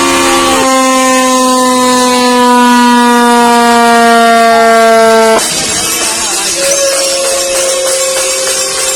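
Ship's horn sounding one loud, long blast with a rich, many-toned note. The note shifts about half a second in, sags slightly in pitch, and cuts off about five and a half seconds in. A fainter horn tone and a noisy clatter follow.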